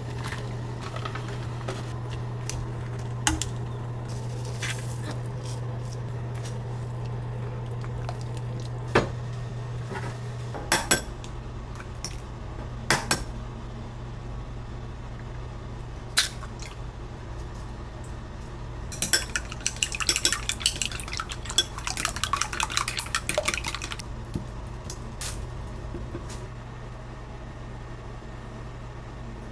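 Kitchen prep sounds: a steady low hum while soup boils on an induction cooktop, then scattered clinks and taps of utensils and eggs on ceramic bowls. From about 19 to 24 seconds in comes a rapid run of clicks as chopsticks beat eggs in a ceramic bowl.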